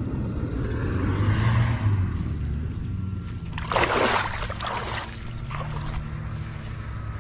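Water pouring and trickling off a cast net as it is hauled out of a muddy ditch, then the wet net landing on the grassy bank with a loud rustling splash about four seconds in, followed by smaller rustles.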